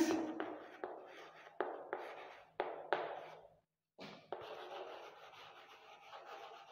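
Chalk writing on a chalkboard: a string of short taps and strokes as letters are formed, a brief pause about three and a half seconds in, then a longer run of continuous scratching.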